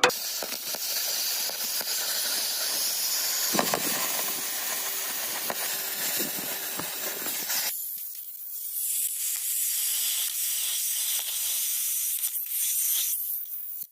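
Steady hissing of metal cutting or welding work. The hiss thins out about eight seconds in, then fills back in near the end.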